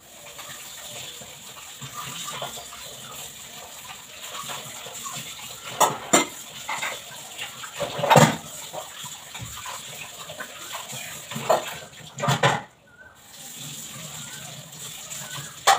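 Tap water running into a kitchen sink while steel utensils are rinsed, with several sharp clinks and clatters of metal dishes. The water stops for a moment near the end, then runs again.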